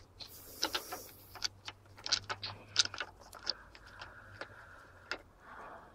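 Scattered light clicks and taps of a spark plug and its rubber boot being handled and pushed down into the cylinder head of a Mercury four-stroke outboard, with a brief rustle of handling noise near the start.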